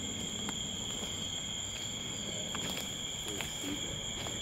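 Crickets trilling in a steady, unbroken high-pitched drone, with a few faint clicks.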